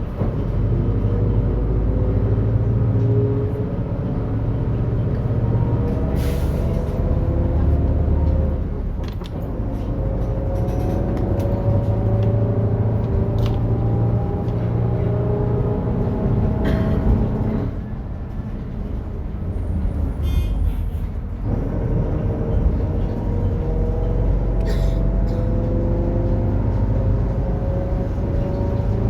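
Mercedes-Benz OF-1721 bus's differential growling, a whine that climbs steadily in pitch as the bus gains speed, over the diesel engine running. The whine and engine drop away briefly about a third of the way in, and again for a few seconds past halfway before the whine builds again.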